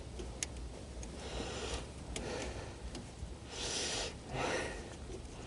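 Quiet handling sounds as an oxygen sensor's wiring connector is plugged in: a single sharp click about half a second in, then a few short hissing rustles.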